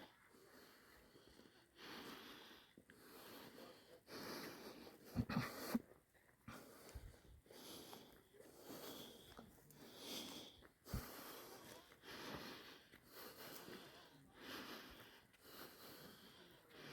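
Faint breathing close to the microphone, a run of short noisy breaths, with a couple of soft low thumps.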